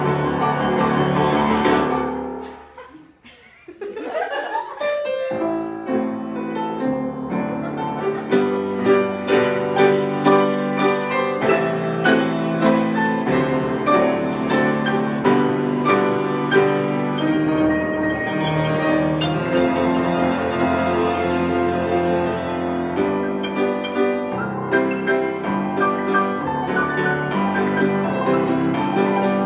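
Piano duet playing: the music thins to a brief hush about two to three seconds in, comes back in with a rising run, and carries on with many quick, busy notes.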